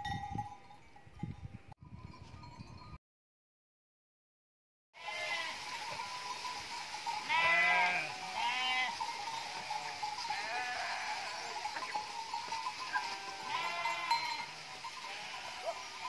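A flock of sheep bleating, with several overlapping calls that come again and again over a steady outdoor background. The calls begin after a two-second drop-out to total silence about three seconds in.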